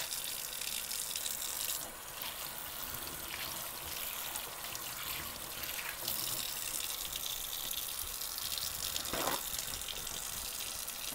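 Kitchen faucet running steadily into a stainless steel sink while hands are rubbed and rinsed under the stream.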